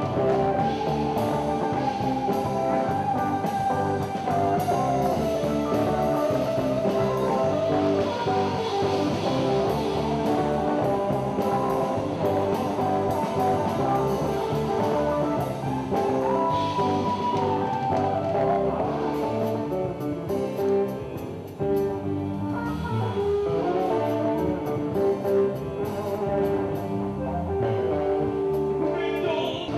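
Live rock band playing, with an electric guitar carrying the melody in held and sliding notes over bass and drums.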